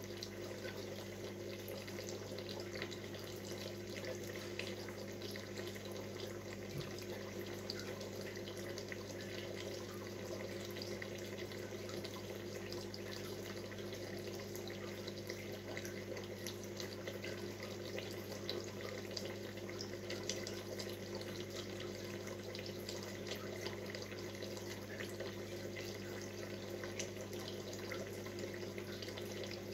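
Aquarium filter running: steady bubbling and trickling water with many small pops, over a constant low hum.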